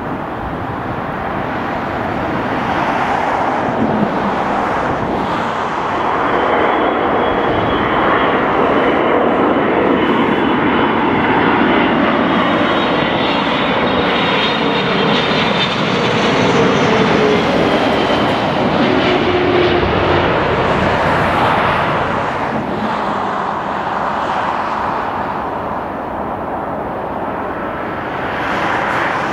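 Boeing 777 freighter's twin GE90 turbofans on final approach with gear down, passing low overhead: jet engine noise that swells to its loudest about halfway through, with a high fan whine and a tone that drops in pitch as it passes, then eases off.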